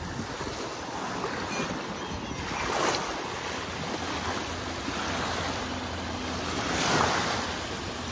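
Small wind-driven waves lapping and washing over the shallows of a lake, with two louder washes about three and seven seconds in, and wind buffeting the microphone.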